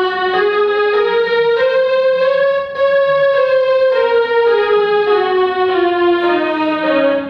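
Electronic keyboard playing a scale in held single notes, stepping up to the octave about two seconds in, holding there, then stepping back down through the second half.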